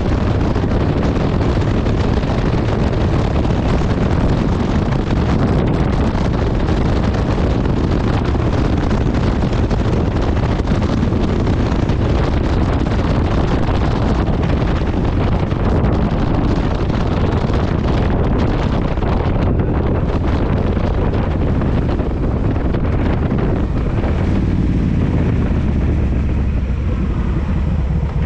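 Heavy wind noise on the camera microphone at road speed, over the low, steady run of the Kawasaki VN1600 Mean Streak's V-twin engine. About four seconds before the end the wind falls away as the bike slows, leaving the engine plainer.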